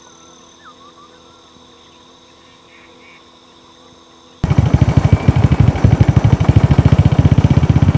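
Quiet outdoor background with faint insect chirps. About four seconds in, a small engine suddenly starts close by and runs loud with a rapid pulsing, about a dozen beats a second.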